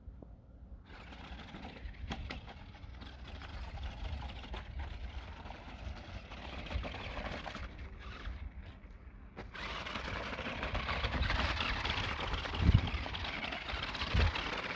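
Megalodon Storm toy RC monster truck driving over gravel: its small electric motor and gears whirring, with the tyres on loose stones. The sound grows louder about two-thirds of the way in, and there is a low thump near the end.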